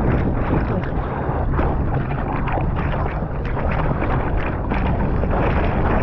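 A surfer paddling on a surfboard: arms splashing through the water in repeated strokes, with water rushing past and wind on the microphone.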